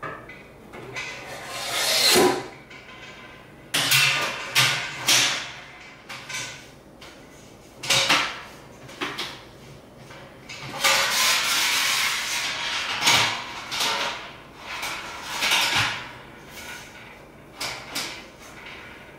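Stainless steel parts of an Anvil Foundry all-in-one brewing kettle being handled: the lid and the grain basket knocking and clattering against the kettle, with a longer sliding scrape of metal on metal about eleven seconds in.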